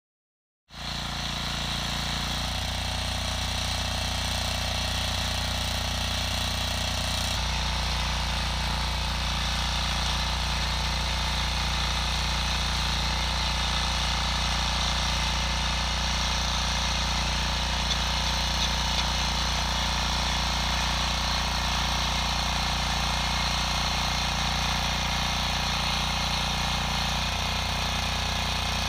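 Husqvarna 545D walk-behind tiller's engine running steadily under load as its rotating tines dig into hard, compacted red soil. The engine sound starts abruptly just under a second in and shifts sharply in tone twice in the first seven seconds.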